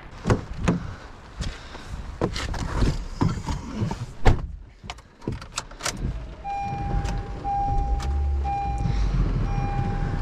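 Several sharp clicks and knocks. About six seconds in, a vehicle engine starts running low and steady, and a single-pitched electronic beep begins repeating roughly once a second, like a warning or reversing beeper.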